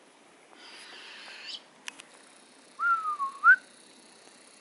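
Captive owl calling: a harsh hissing screech of about a second that ends in a sharp upward sweep, then a louder clear whistled call about three seconds in that dips and then rises sharply at its end.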